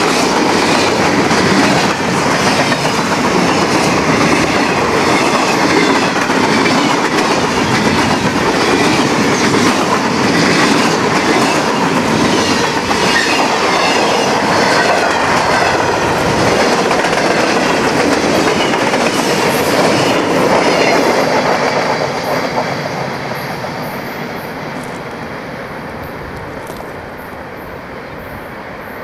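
Freight train of covered hopper cars rolling past close by, its wheels clacking over the rail joints. About 22 seconds in the noise starts to fall away as the end of the train passes and it rolls off down the track.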